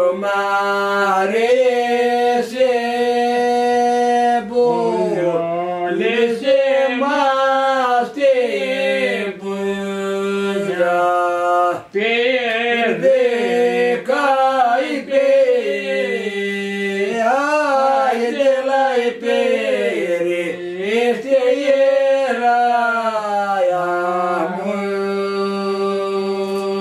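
An elderly man singing a Greek village folk song unaccompanied, in long held notes with ornamented turns.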